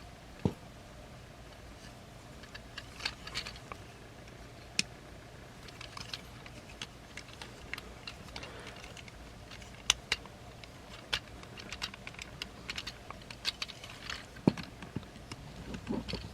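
Hard plastic toy parts of a transforming action figure clicking and tapping as they are handled, folded and pegged together: irregular small clicks with a few sharper snaps.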